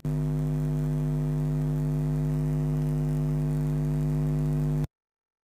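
Steady low electrical-sounding hum with a stack of overtones, constant in pitch and level, that cuts off suddenly just before the end.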